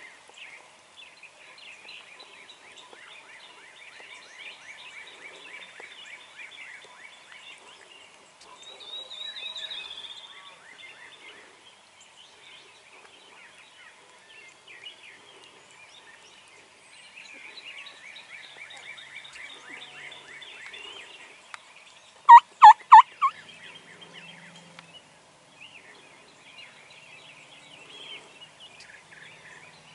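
An eastern wild turkey gobbler gobbles once, loudly, about two-thirds of the way in: a quick rattling call of about four pulses in under a second.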